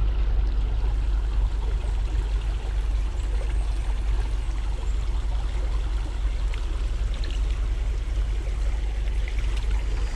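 Small creek's water running: a steady rushing noise with a strong low rumble.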